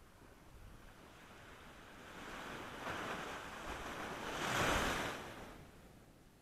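A small wave breaking and washing up a sandy shore: a rush of surf that builds over a couple of seconds, peaks about two-thirds of the way through, then fades away.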